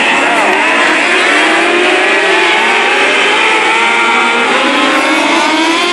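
A pack of small open-wheel dirt-track race cars running together: several engines at once, their pitches rising and falling as they rev, loud and continuous.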